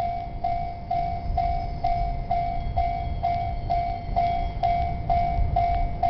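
Japanese railway level-crossing warning alarm ringing, a steady electronic bell tone repeating about twice a second, over a continuous low rumble.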